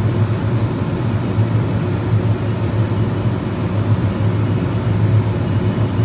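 Steady industrial background drone: a loud, even low hum under a constant rushing noise, with no separate clicks or knocks standing out.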